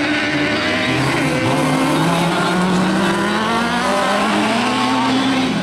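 Racing car engine running hard, its pitch dropping in the first second or so, then climbing steadily for several seconds.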